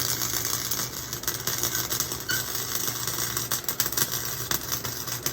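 Chicago Electric flux-core wire welder arc welding exhaust pipe: a continuous crackling, sputtering arc over a steady low hum.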